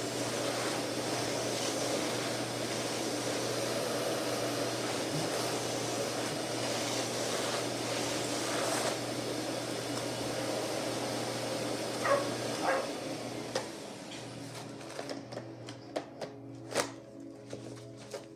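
Miele Classic C1 canister vacuum cleaner running with a steady whir and hum. The running noise stops about thirteen seconds in, followed by scattered clicks and knocks.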